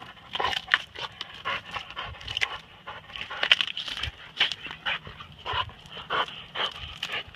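Dog panting hard while gnawing and tearing at the bark and wood of a split cedar trunk, with frequent short, sharp cracks and crunches, several a second.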